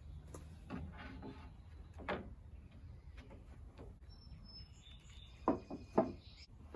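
Lumber being handled: scattered wooden knocks, the two sharpest a little before the end as boards are set against the deck frame. Faint bird chirps in the background.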